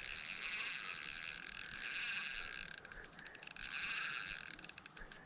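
Shrill chorus of insects buzzing steadily. The sound breaks into rapid stuttering pulses about three seconds in and again near the end.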